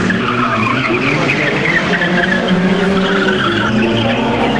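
Car driven hard through tight turns around cones, its tyres squealing and its engine running under load.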